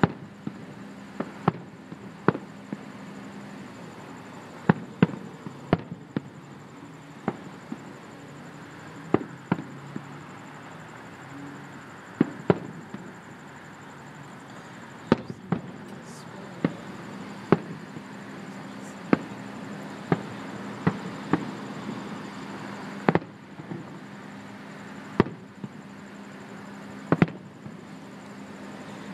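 Aerial fireworks shells bursting: sharp bangs at irregular intervals, one or two a second, over a steady low hum.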